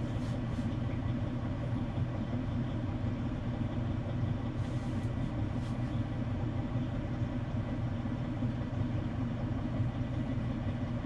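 Cat medium wheel loader's diesel engine idling steadily, heard from inside the cab.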